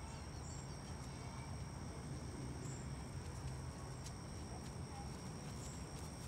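Quiet backyard ambience: a steady low hum with a faint, steady high-pitched whine above it, and a faint click or two.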